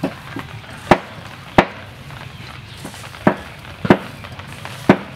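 Hands slapping and patting a seed coating onto a whole raw chicken in a glass dish: about six sharp, short slaps and taps, unevenly spaced, over a low steady hum.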